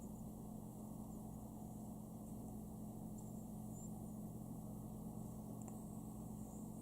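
Chihuahua snoring softly while asleep, over a steady low hum.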